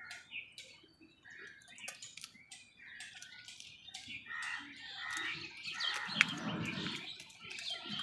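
House crows feeding at a plastic bowl: many sharp beak taps and scattered bird calls, with a louder flurry and a sharp crack about six seconds in.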